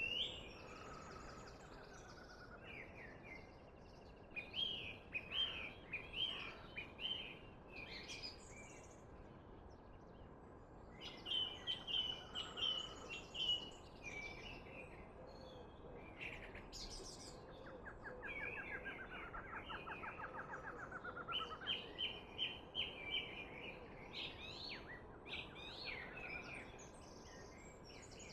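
Songbirds singing and chirping in short repeated phrases, with a rapid trill about two-thirds of the way through, over a faint steady background hiss.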